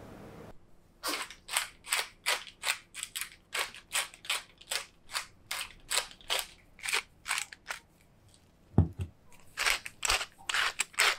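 Wooden spice mill being twisted to grind seasoning, a quick run of short crackling grinds about three a second. Near nine seconds there is a single low knock, then the grinding starts again.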